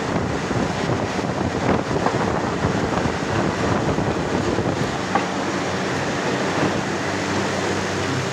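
Steady loud machinery din of a hot steel forging shop: a dense rumbling wash of noise with a low hum, broken by a few sharp knocks.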